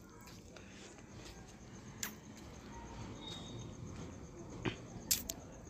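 Quiet room background with a few faint, brief clicks, one about two seconds in and a few more near the end.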